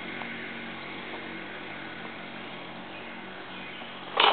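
Steady outdoor background with a faint low hum. Right at the end a sudden clatter of metal clicks begins, typical of a kid's scooter hitting the pavement.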